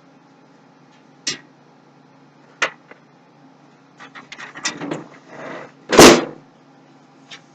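Handling noises from a computer case being worked on: a few sharp clicks, a run of small knocks and rattles, then a loud thud about six seconds in.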